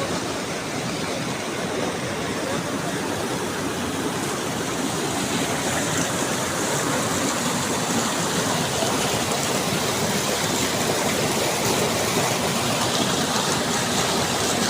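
Steady rushing of a mountain stream, an even wash of water noise with no breaks.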